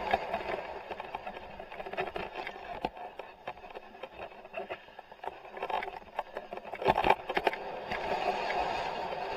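Bicycle riding down a rough dirt track, heard from a helmet-mounted camera: a steady rushing of wind and tyres, with sharp knocks and rattles over bumps, the strongest about seven seconds in.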